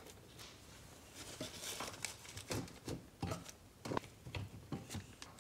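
Faint, irregular clicks and taps of fuel injectors being handled and pushed by hand into a metal fuel rail, with a sharper click at the very end.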